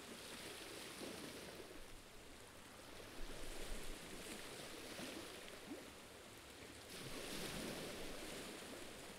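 Faint shoreline ambience: small waves washing against the rock shore, with light wind. The hiss grows a little louder about seven seconds in.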